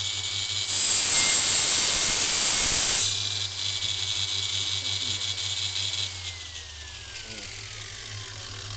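A 125 mm angle grinder, mounted in a homemade saw-bench stand, running at full speed with a high whine and a harsher rushing noise for the first three seconds. About six seconds in it is switched off and winds down, its whine falling steadily in pitch.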